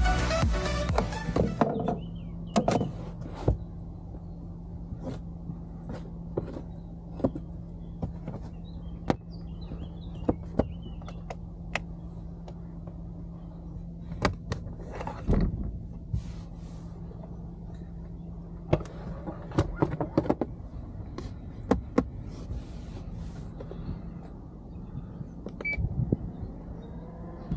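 Handling noises in a car boot: the boot floor panel and trim being lifted, set down and touched, giving scattered knocks, clicks and rubs over a steady low hum.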